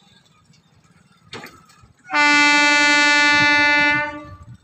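An EMU local train's horn sounds one loud, steady, single-pitched blast of about two seconds, starting about two seconds in and dying away near the end. A short knock comes about half a second before it.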